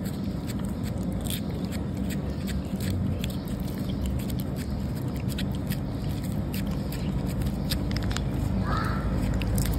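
A cat licking a creamy cat treat from a squeeze tube: a run of small, irregular wet tongue clicks and smacks over steady low background noise.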